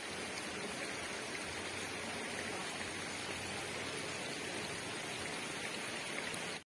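Steady, even hiss of shallow water flowing over a sandy, pebbly bed.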